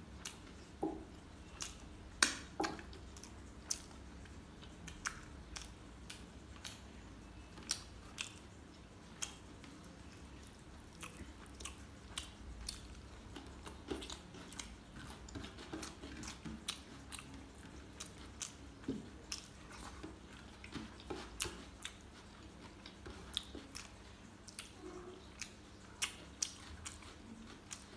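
A person chewing and smacking his lips over a mouthful of rice and chicken in gravy, eaten by hand. It comes as irregular sharp wet clicks, the loudest about two seconds in.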